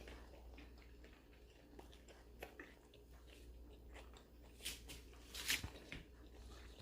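Faint chewing of a crunchy shrimp spring roll, with a few soft crunches over a low steady hum.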